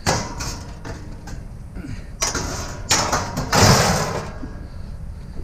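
Metal bunk bed frame clanking and scraping as it is handled: a sharp clatter at the start, then loud scraping bursts from about two to four seconds in. Underneath, a vehicle engine idles steadily.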